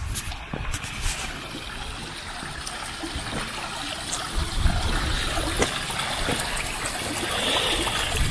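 Shallow stream running over stones, a steady trickling of water.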